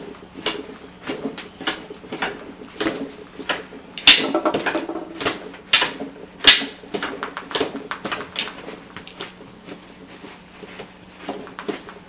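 A dreaming Pointer mix running in his sleep, his paws repeatedly kicking and scuffing against another dog's body and the carpet: a run of short scratchy strikes, about one every half second or so, loudest around the middle.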